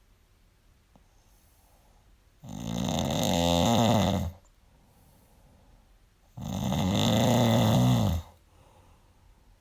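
A person snoring in their sleep: two long, loud snores about four seconds apart, each lasting about two seconds, with quiet between them. The uploader puts the snoring down to sleep apnea.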